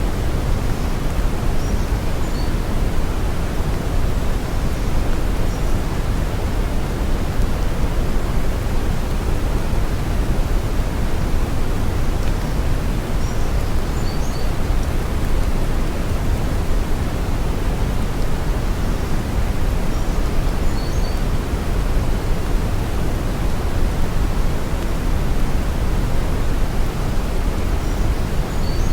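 Steady brown noise: an even, unbroken hiss weighted heavily toward the deep low end, holding the same level throughout.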